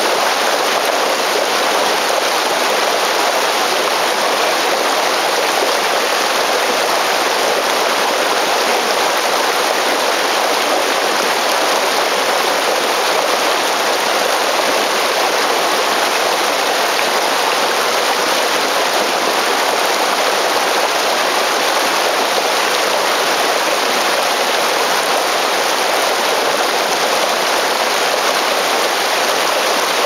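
A waterfall of several strands pouring into a river pool: a steady, unbroken rush of falling water.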